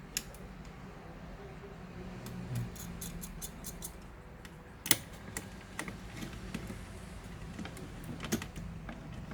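Scattered small clicks and taps of tools and plastic and metal laptop parts being handled during disassembly, the sharpest about five seconds in and a cluster just after eight seconds.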